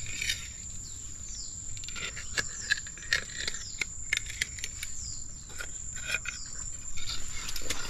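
A steady high-pitched insect drone with repeated short falling chirps and scattered sharp clicks and rustles.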